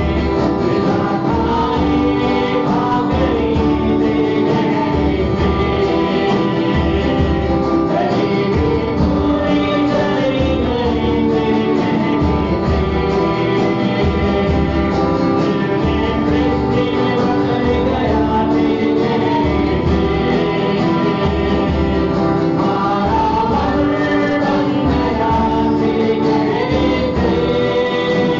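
A live worship band playing a Hindi Christian song: voices singing the melody over acoustic and electric guitars and a drum kit keeping a steady beat.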